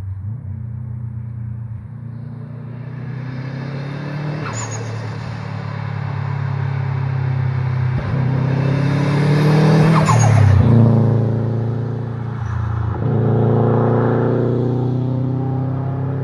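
Subaru Impreza WRX STI's 2.5-litre turbocharged flat-four driving past hard. The note swells as it approaches and drops in pitch as it goes by, broken by a few sharp exhaust pops and breaks where the driver shifts or lifts off. The engine rises again near the end.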